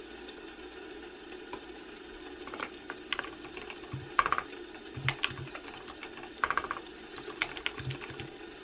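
Typing on a computer keyboard: irregular keystroke clicks in short runs, starting about two seconds in and stopping shortly before the end. A steady low hum runs underneath.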